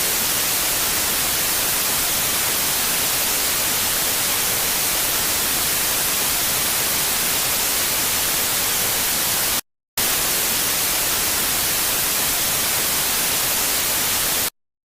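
Broadcast static: a steady, loud white-noise hiss with no tone in it, broken by a short dropout about ten seconds in and cutting off suddenly just before the end.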